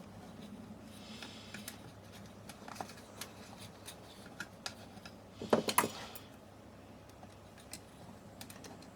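Light clicks and taps of small plastic and metal parts being handled, with a short louder clatter about five and a half seconds in.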